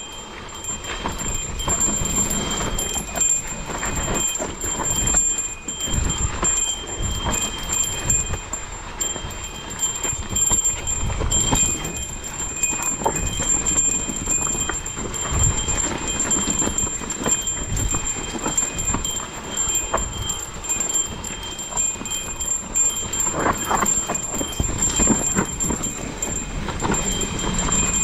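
Specialized Kenevo SL electric mountain bike descending a dry, loose dirt singletrack: tyres rumbling over dirt and rocks, with irregular knocks and clatter from the bike over bumps. A faint steady high-pitched tone runs through it.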